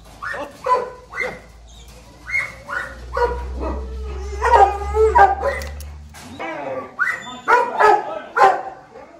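Dogs barking over and over, short barks coming in quick runs.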